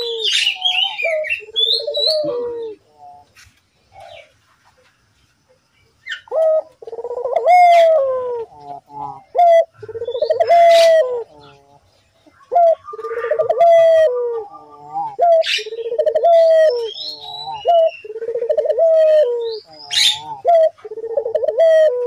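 Barbary dove (puter) cooing over and over, low rolling coos about a second apart, with a pause of a few seconds before the calls pick up again. Thin high chirps of small birds sound over the coos.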